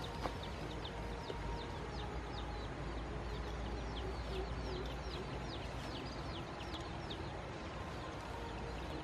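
Chickens peeping: a steady string of short, high, falling peeps, about three a second.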